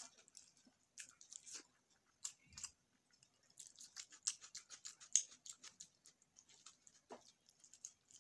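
Wet chewing and lip-smacking from a mouthful of rajma and rice: irregular runs of short, soft mouth clicks, busiest about four to five seconds in.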